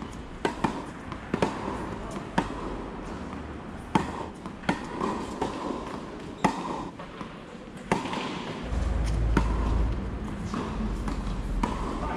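Tennis balls struck by rackets and bouncing on the court: a series of sharp pops, irregularly spaced about one to one and a half seconds apart, sometimes two close together. A low rumble comes in about three-quarters of the way through.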